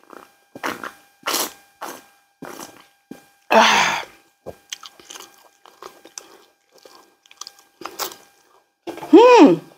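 Close-up chewing and biting of food, a run of short crunchy mouth sounds, with a louder burst about three and a half seconds in. Near the end comes a short voiced hum that rises and falls.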